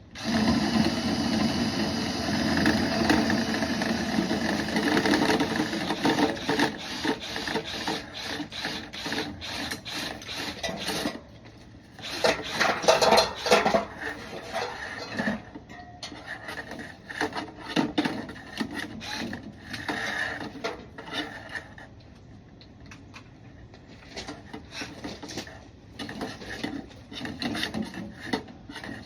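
Dryer vent cleaning brush spinning and scraping inside the duct: a fast, continuous rattle of clicks and rasping. It is loudest at first, drops off about eleven seconds in, flares up briefly, then goes on more quietly.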